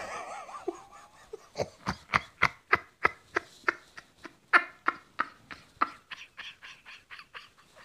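A man laughing hard: a long run of short bursts of laughter, about three to four a second.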